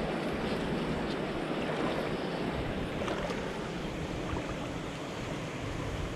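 Steady rush of river water flowing over a rocky shoal, with a few faint ticks.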